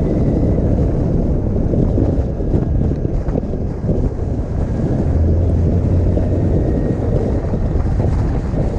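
Wind rushing and buffeting over the microphone of a camera riding on a moving motorcycle, with the motorcycle's running sound under it. A steadier low hum comes through for a couple of seconds just past the middle.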